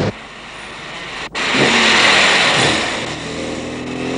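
A car driving past and accelerating: a loud rushing noise swells and fades over about a second and a half, then the engine note climbs slowly near the end. The sound breaks off briefly about a second in.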